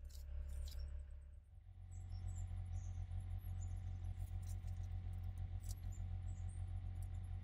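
Faint, scattered high chirps and light clicks and scratches as Eurasian jay fledglings and an adult shift in a twig nest, over a steady low hum; a steady higher whine joins about a second and a half in.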